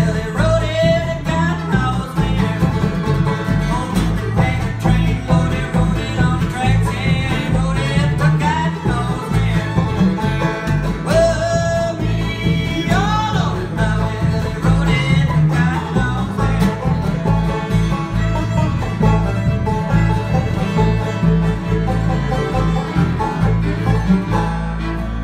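Bluegrass band playing acoustic guitars, a bowed fiddle, a five-string banjo and an upright bass together, with a steady bass beat under the melody.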